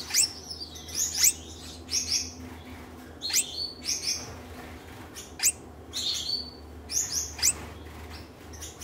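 Gouldian finches chirping: short, sharp calls with buzzy high notes, about one a second at irregular spacing.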